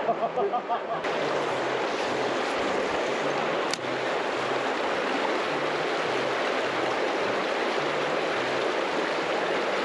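Fast river current rushing and splashing past, a steady noise of moving water.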